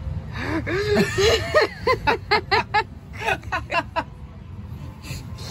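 A person laughing in a run of quick bursts that rise and fall in pitch, over the low rumble of a track-guided kids' ride car moving along.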